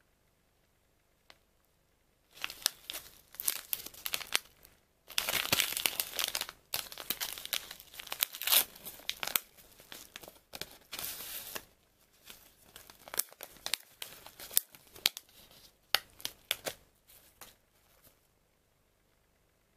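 A sealed paper tea-bag sachet being torn open and crinkled by hand as the tea bag is pulled out. It is a long run of irregular crackling tears from about two seconds in until shortly before the end, loudest in the middle.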